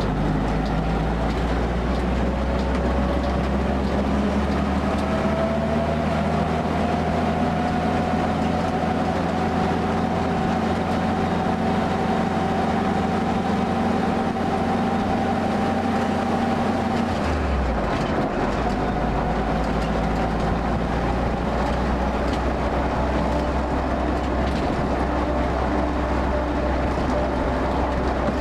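Jeep's four-cylinder engine and drivetrain running on the move, with a thin whine that climbs slowly as the Jeep gathers speed. About two-thirds of the way through, the whine stops abruptly and the engine note drops and changes.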